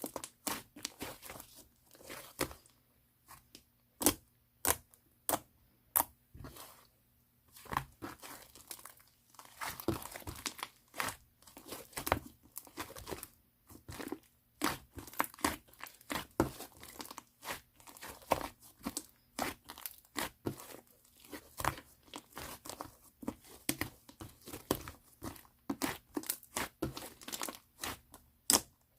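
Pink mixed slime being squeezed and pressed by hand, giving irregular sharp pops and crackles several times a second.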